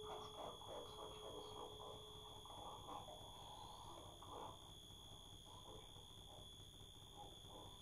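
Quiet live electronic noise music from a tabletop rig of mixers and effects units: a steady high whine under sparse, irregular chirps and crackles, with a lower held tone that stops about two and a half seconds in.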